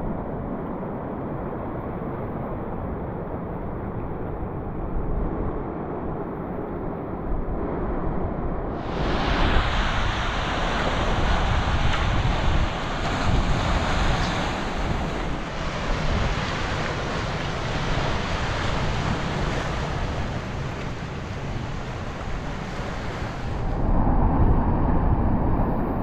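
Ocean surf washing and breaking over a rocky shore, with wind on the microphone. About nine seconds in it switches abruptly to a louder, brighter hiss of breaking water, and near the end to a deeper rumble.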